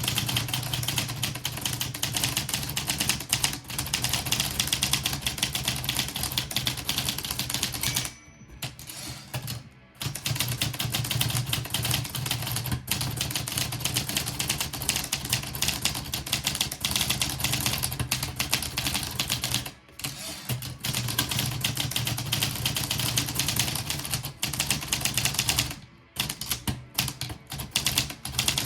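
A manual portable typewriter is being typed on in fast runs of key strikes, broken by a few short pauses.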